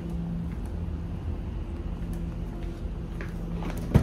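A steady low mechanical hum with faint footsteps, and near the end a sharp clack as a car's door handle is pulled.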